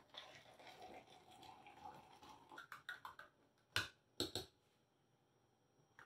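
Hot water poured in a thin stream from a kettle into a V60 pour-over cone, quiet and steady for about two and a half seconds. A few light clicks follow, then three sharp knocks about four seconds in.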